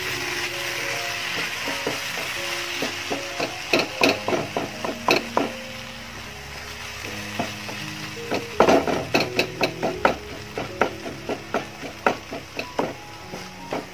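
Spatula stirring and pressing thick onion-tomato masala in a nonstick kadai: a light frying sizzle, with a quick run of knocks and scrapes as the spatula strikes the pan, a few a second and densest in the second half. The tomatoes are being fried down into a paste.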